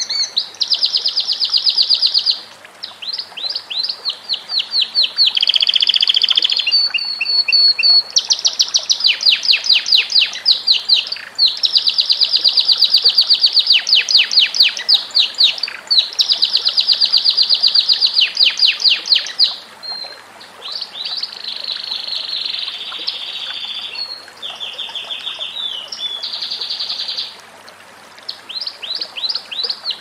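Domestic canary singing: a long, loud song of fast trills, each phrase a rapid run of repeated notes, switching to a new phrase every second or two.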